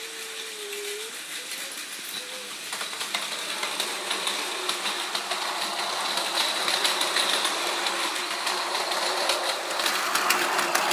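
Small electric motors of toy trains whirring as they run along plastic track, with wheels clicking over the track joins. The whirring grows louder about three seconds in, and the clicking thickens toward the end.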